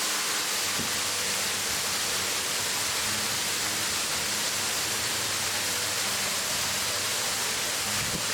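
Waterfall: a steady rush of falling water, with a hiss strongest in the high range.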